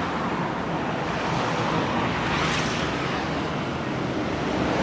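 Steady rushing noise of road traffic by the roadside, swelling a little about halfway through as a vehicle goes by.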